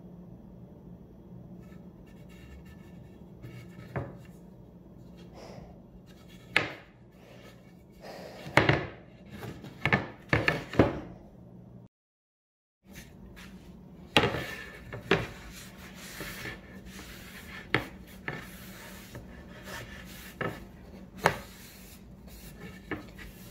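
Pieces of plywood handled on a workbench: scattered knocks and scrapes of wood on wood, loudest in a cluster about nine to eleven seconds in. After a second of dead silence near the middle comes a cloth rubbing over the board, over a faint steady low hum.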